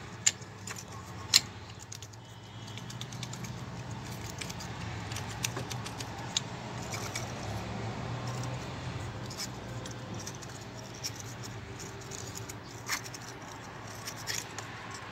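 Light metallic clinks and rattling from diesel fuel injectors being worked loose and pulled out of the cylinder head by hand, with two sharp clanks in the first second and a half and scattered clicks after. A steady low hum runs underneath.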